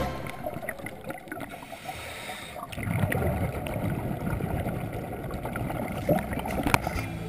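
Underwater sound through a GoPro housing on a scuba dive: a quieter stretch, then from about three seconds in a louder low bubbling rush of a diver's regulator exhaust bubbles, with a couple of sharp clicks near the end.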